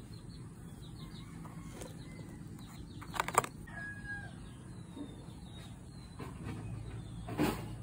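Chickens clucking and chirping over a low steady rumble, with a loud sharp knock a little over three seconds in and another near the end.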